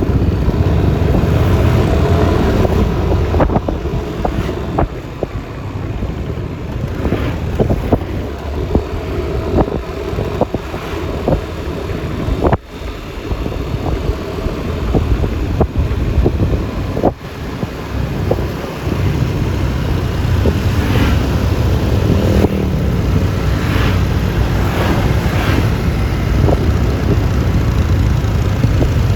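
Road noise from a moving Yamaha Lexi LX 155 scooter, a 155 cc single-cylinder, with wind rumbling on the microphone over the engine and surrounding traffic. The wind rumble eases in the middle and builds again about two-thirds of the way through.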